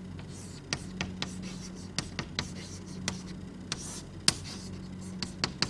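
Handwriting: irregular small taps and scratching strokes of a writing instrument, over a steady low electrical hum.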